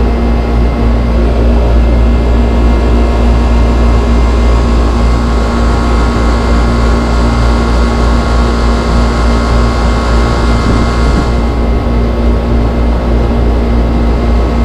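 Outdoor air-conditioning condenser unit running on R22: compressor hum and condenser fan air noise, steady and loud, with a constant low tone. The hiss softens a little about eleven seconds in.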